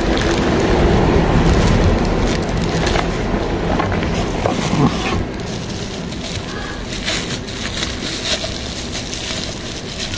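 Plastic packaging and bubble wrap crinkling and rustling in irregular bursts as they are handled, over a steady low background rumble.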